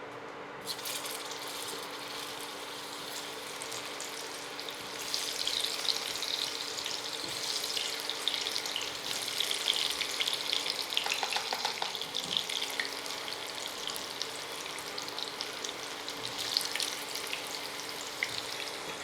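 Potato pieces frying in hot oil in a karai, a steady sizzling and crackling that grows louder about five seconds in. A faint steady hum runs underneath.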